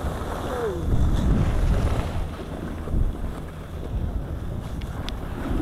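Wind buffeting the microphone of a skier's camera as it moves downhill, a steady low rumble, with the skis sliding over packed groomed snow.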